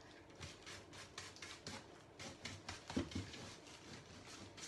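Faint, quick strokes of a paintbrush over a canvas as wet base-coat paint is feathered off, a few strokes a second. A soft knock about three seconds in as the canvas is handled.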